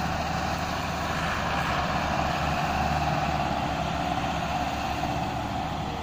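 Massey Ferguson 385 tractors' diesel engines running steadily under load, hauling a heavily loaded sugarcane trolley.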